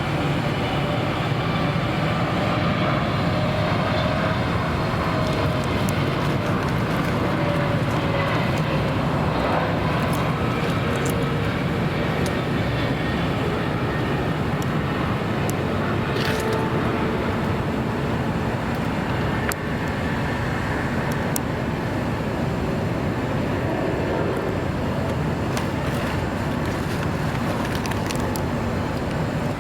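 Jet airliner engines running as a plane passes: a steady loud rush with faint whine tones sliding slowly down in pitch.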